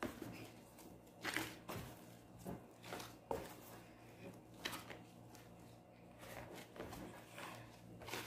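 Soft, sticky pizza dough being kneaded by hand in a plastic basin: a plastic-gloved hand presses and folds it, making faint, irregular squishes.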